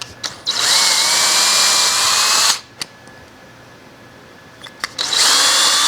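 Power drill with a 1/8 inch bit drilling pilot holes through a 3/4 inch wooden board: one burst of about two seconds with the motor whine rising slightly, a pause with a few small clicks, then a second burst starting near the end.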